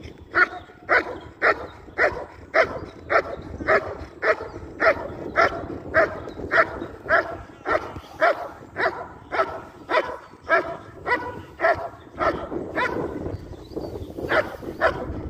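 German Shepherd barking in a steady, even rhythm of about two loud barks a second. The barks break off for about two seconds near the end, then start again.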